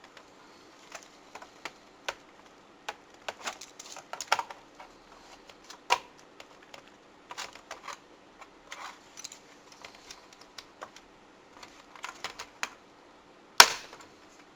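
Scattered small clicks, taps and rattles of plastic parts and small screws as a laptop is taken apart, with one sharp snap near the end. A faint steady hum runs underneath.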